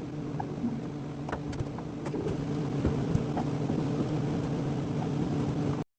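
A power tool's electric motor running steadily at one pitch, with a few light clicks and knocks over it, then cutting off abruptly near the end.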